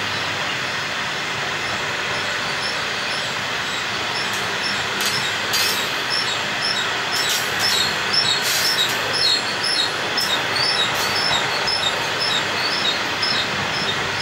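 Loaded grain hopper wagons rolling past with a steady noise of wheels on rail. From about four seconds in, short high-pitched wheel squeals repeat several times a second, with a few sharp clicks among them.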